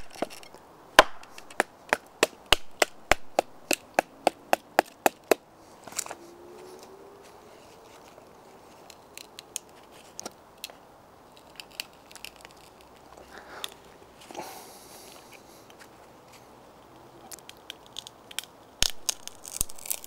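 A knife being batoned into a small log with a wooden baton: a fast run of about fifteen sharp knocks, roughly three a second, over the first five seconds. The wood then splits with scattered cracks and rustles, and a few more knocks come near the end.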